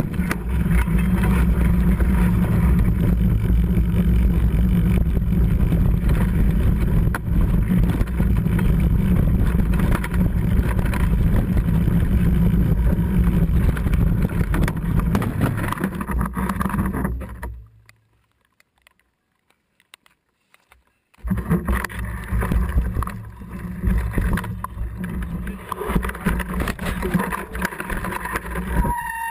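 Riding noise of a mountain bike descending a rough, wet trail, heard through a body-mounted camera's microphone: a loud, steady rumble of tyres and frame rattle mixed with wind on the microphone. Past the middle the sound drops out to near silence for about three seconds, then comes back.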